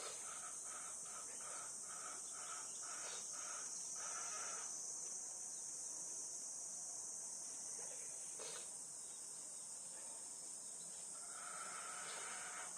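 Steady, high-pitched chorus of summer insects, with a rhythmic pulsing call of about two pulses a second for the first few seconds and again near the end.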